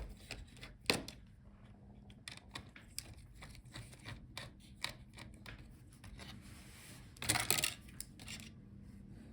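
Light clicks and taps of fingers and a small tool on a laptop's internal parts as a cover over the SSD is taken off, with a brief scratchy rustle about seven seconds in.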